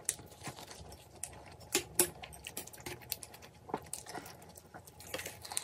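Eating sounds at close range: scattered light clicks and taps of wooden spoons and chopsticks against a ceramic bowl and a frying pan, with soft chewing in between.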